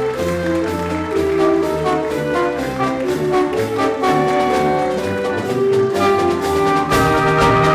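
A high school wind ensemble playing, with brass to the fore in sustained, changing chords; the low end swells near the end.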